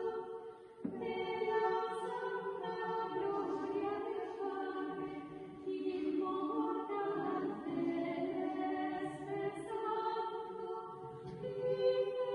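Choral singing: slow, long-held vocal notes that shift in pitch every second or so, with a short dip about a second in.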